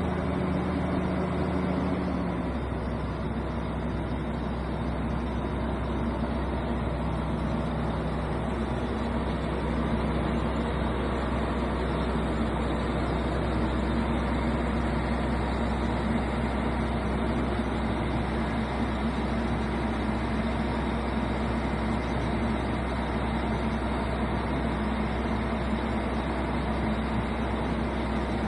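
Diesel engine of a Driltech D40K2 truck-mounted drill rig running steadily. Its low note shifts about two seconds in, then holds.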